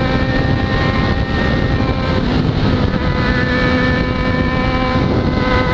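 Yamaha XJ6's inline-four engine running at steady cruising revs, with a constant rush of wind and road noise underneath.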